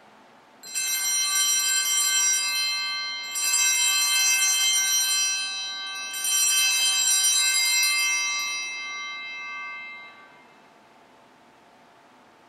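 Altar bells rung three times, about two and a half seconds apart, each ring a bright cluster of high chimes that fades; the last dies away about ten seconds in. They mark the elevation of the chalice at the consecration.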